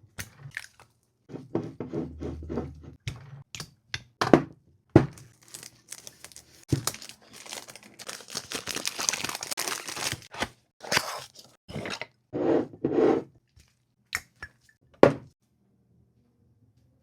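Perfume packaging being handled and opened: a run of clicks and taps, a few seconds of continuous rustling in the middle, then more taps and two sharp knocks before it goes still.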